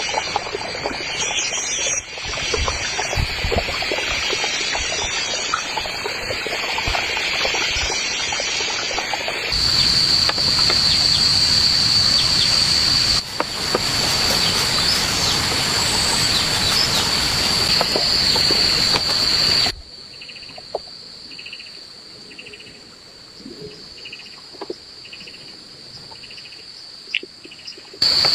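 Jungle insects droning in a steady high-pitched buzz over a rushing hiss. In a quieter stretch near the end, a single chirp repeats about once a second.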